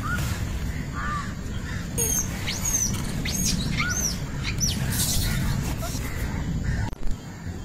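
Birds chirping: a quick run of high arched chirps, each rising and falling, a few seconds in, over a steady low outdoor rumble. A sharp knock near the end.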